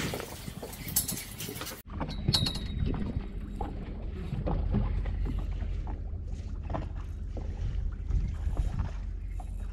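Water lapping against a small boat's hull, with a steady low rumble of wind on the microphone and scattered light clicks.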